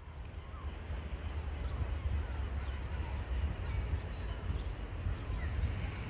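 Wind buffeting the microphone in a steady low rumble, with scattered short bird chirps over it.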